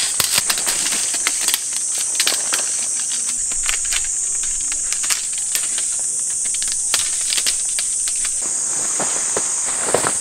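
A steady, high-pitched insect chorus, with scattered clicks and rustles as aluminium tent poles and tent fabric are handled on gravel.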